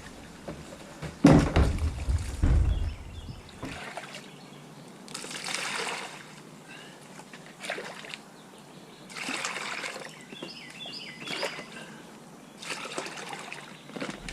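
Rainwater sloshing and splashing out of a full bucket as it is dumped, in several short pours of about a second each, with a couple of knocks in the first few seconds.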